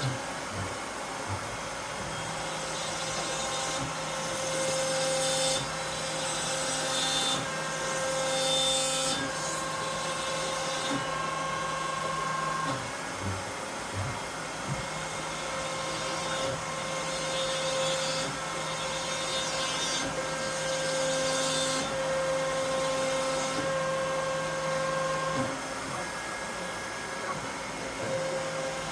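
CNC router cutting wood: a steady machine whine whose tones shift every few seconds as the machine changes from one move to the next.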